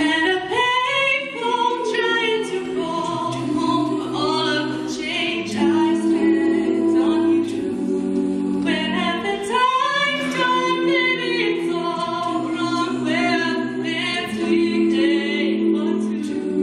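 Show choir singing: a female soloist sings the melody through a microphone over sustained chords held by the choir's voices.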